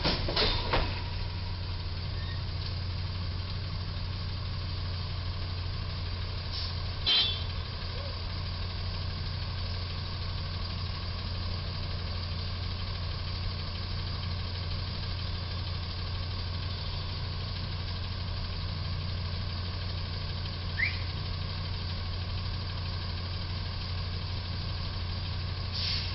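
Box truck engine idling steadily, a constant low hum, with one sharp knock about seven seconds in and a brief rising chirp near the end.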